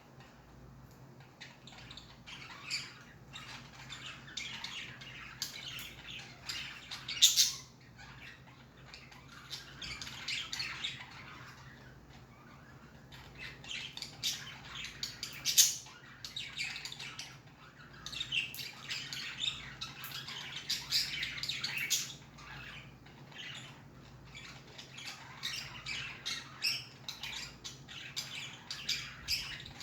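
Budgies (budgerigars) chirping, chattering and squawking in busy bouts, with short lulls between. There are a few sharper, louder squawks, around seven and fifteen seconds in.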